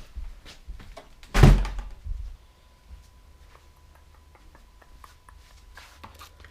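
A single heavy thump about a second and a half in, followed by faint small taps and clicks of handling.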